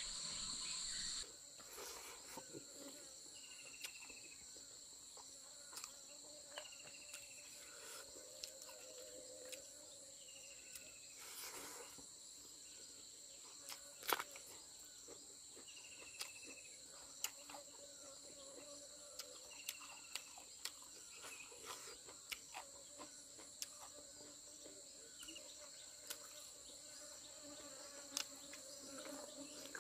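Faint steady high-pitched trilling of insects, with short falling chirps every few seconds and scattered small clicks and taps.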